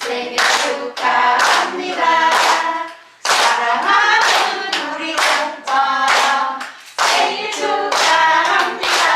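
Voices singing along to rhythmic hand clapping, about two claps a second, with short pauses twice.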